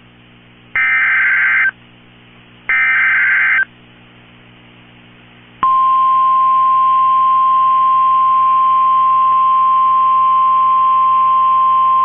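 Emergency Alert System SAME header: two loud bursts of warbling digital data tones, each about a second long and a second apart. After about two seconds of faint hum, a single steady 1050 Hz NOAA Weather Radio warning alarm tone comes on about five and a half seconds in, signalling that a tornado warning follows.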